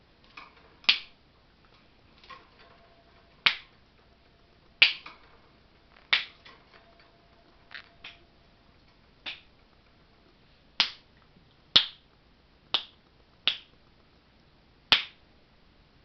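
A small green conure making a series of short, sharp clicking chirps, roughly one a second and uneven in loudness, with about a dozen in all.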